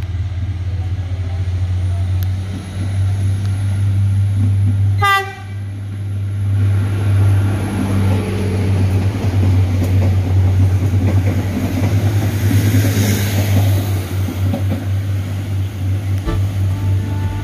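Airport train diesel multiple unit passing close: a steady low engine drone throughout, a brief horn toot about five seconds in, then the wheels and carriages rumbling past.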